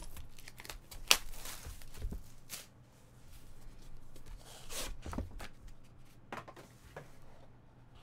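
Plastic shrink wrap being torn and crinkled off a trading card box, with sharp crackles and clicks. It is followed by cardboard box handling and the lid being opened.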